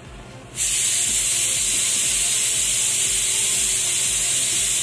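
A loud, steady hiss that starts abruptly about half a second in and holds level.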